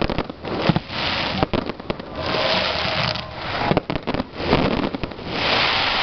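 Aerial fireworks shells bursting in quick succession, sharp bangs over a dense crackle of glittering stars.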